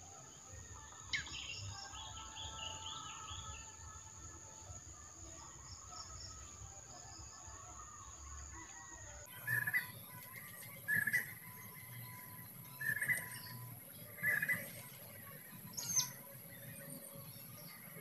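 Small birds chirping and calling over a steady high insect whine. In the second half come five short, louder calls, about one every second and a half.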